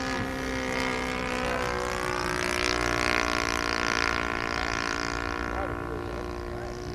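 Radio-controlled model T-28 airplane flying by, its engine droning with shifting pitch, louder toward the middle and then fading.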